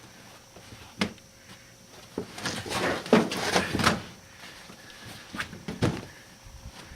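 Molded car carpet with a foam backing being shoved and worked into the car's floor: a sharp knock, a couple of seconds of loud rustling and scraping as the carpet drags, then two more knocks.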